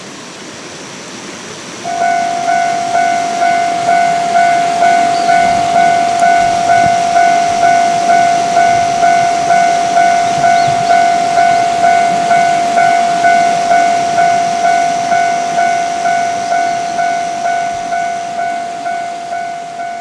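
Japanese level-crossing electronic warning bell starting about two seconds in and ringing steadily at about two dings a second, the signal that a train is approaching.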